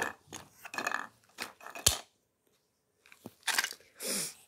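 Wooden and plastic toys being handled and knocked together on a rug: a string of light clicks and knocks, a sharper knock about two seconds in, then a couple of rustles near the end.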